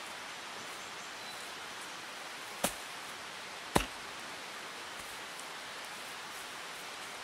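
Two sharp chops of an axe into the soil, about a second apart, digging out a dandelion root, over a steady hiss.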